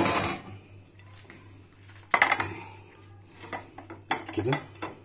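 Ceramic dinner plate clattering and knocking against a stone kitchen countertop as it is set down and shifted. The loudest clatter comes about two seconds in, with a few more knocks near the end.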